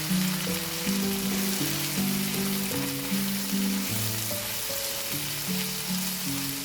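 Food frying in oil in a skillet, a steady sizzling hiss, with background music playing a simple melody over it.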